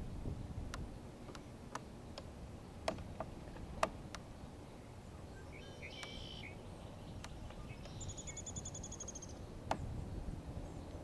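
Small wild birds calling: a short call about six seconds in and a rapid trill of evenly repeated high notes lasting over a second near the end, over a low steady rumble. Several sharp clicks stand out, the loudest just under four seconds in and near the end.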